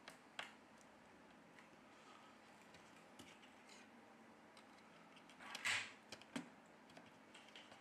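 Quiet handling of small smartphone parts with faint clicks, then about five and a half seconds in a short, louder plastic click-and-scrape as the Meizu M6T's plastic motherboard cover is pressed down into the frame, followed by one more small click.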